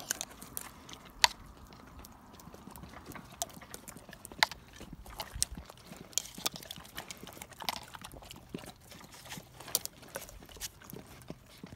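Irish wolfhounds licking and smacking their lips over Greek yogurt and shifting their feet on concrete: scattered, irregular wet clicks and smacks, a few of them sharper.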